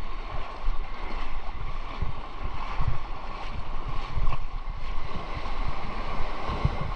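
Wind buffeting the microphone, with small waves washing up on a sandy beach.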